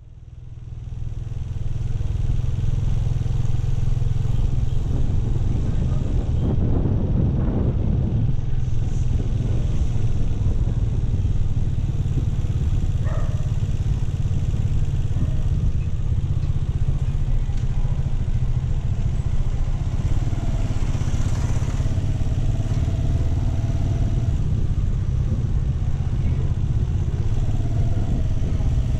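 Motorcycle ridden at low speed through town streets: the engine runs with a steady low rumble.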